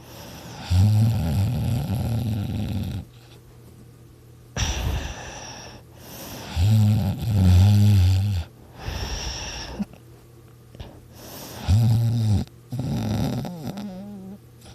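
A person snoring very loud: three long, low buzzing snores about every five seconds, with airy breaths in between.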